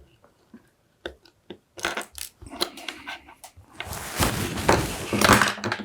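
Small clicks and clatter of parts being handled on a workbench, then a loud scraping, rustling noise for about the last two seconds.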